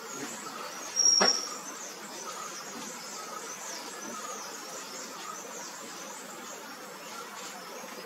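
Ambience of faint, scattered bird chirps and insects, with one short, loud high-pitched note about a second in.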